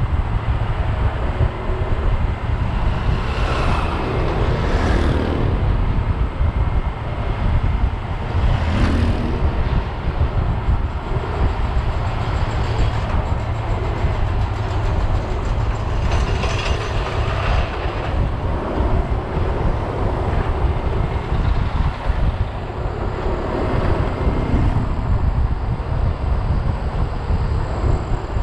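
Wind rushing over the microphone of a camera on a bicycle riding downhill at speed, with the road noise of the wheels. It makes a steady, loud low rumble, and the hiss swells a few times.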